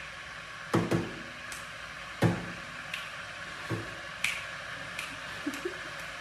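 A run of sharp, irregular clicks and knocks, about ten in all. The strongest come in the first half, each with a dull low thud, and lighter ticks follow later.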